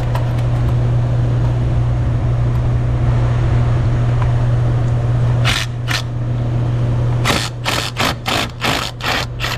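Impact wrench on an extension hammering at a rusted catalytic converter bolt. It fires two short bursts about halfway through, then a quick run of about seven more near the end as the bolt breaks loose.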